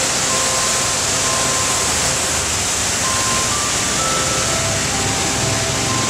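Steady rush of flowing water under soft background music, a slow melody of single held notes.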